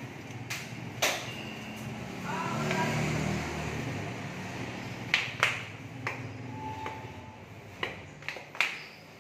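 Scattered sharp knocks and clicks on hard surfaces, irregularly spaced: two in the first second, then a run of about six from about five seconds in, over a low steady hum.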